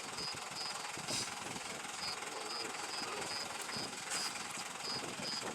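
An insect chirping in a high, evenly repeated note about two and a half times a second, over a steady low rumble.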